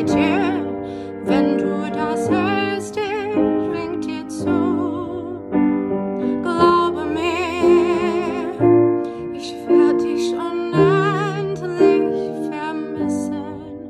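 A woman singing long, wavering held notes with vibrato over piano accompaniment.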